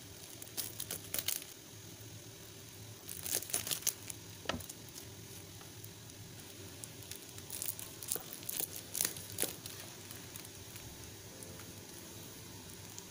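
Knife cutting through plastic-wrapped blocks of tempeh on a plastic cutting board: the wrapping crinkles and crackles in several short bursts as each cut goes through.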